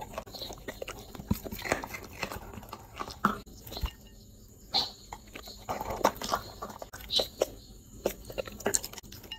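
A dog biting and chewing food taken from a hand, including broccoli florets, with wet mouth clicks and smacks coming in irregular bursts with short pauses.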